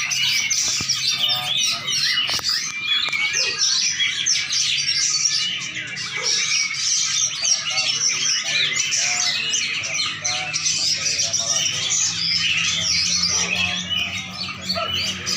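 Songbird chirping and twittering without pause in dense, rapid runs of high notes, over a low steady hum.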